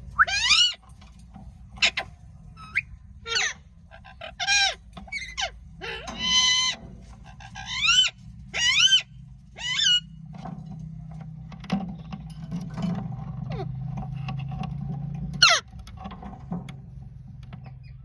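Ringneck parakeets giving shrill, screeching calls, each a short sharp sweep in pitch. The calls come thick and fast through the first half and grow sparser later, over a low steady hum from about ten seconds in.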